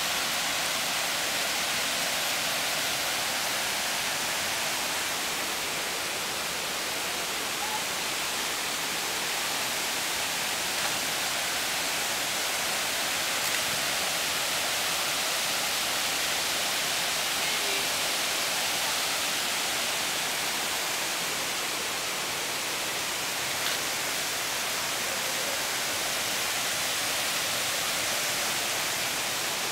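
Steady, unbroken rushing noise with no distinct events.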